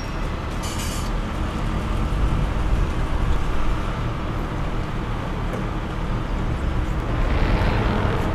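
Class 142 Pacer diesel railbus standing with its underfloor diesel engine idling, a steady low rumble. A short hiss cuts in about a second in.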